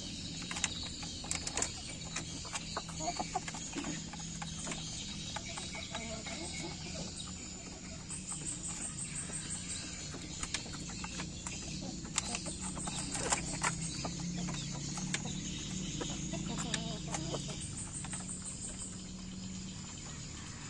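Young chickens pecking mash from a feed trough: irregular sharp taps of beaks on the trough, with the birds clucking softly. A high insect trill comes and goes in the background.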